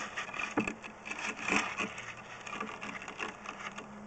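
Handling noise from a drain inspection camera rig: irregular knocks and scrapes over a faint hiss, with a low steady hum coming in near the end.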